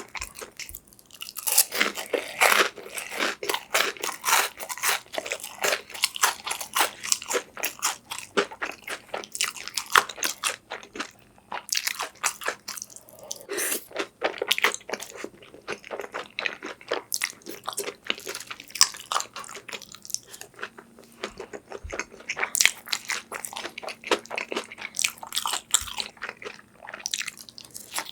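Close-miked eating: a person chewing and crunching food, with many crisp, irregular crunches and a few short pauses between mouthfuls.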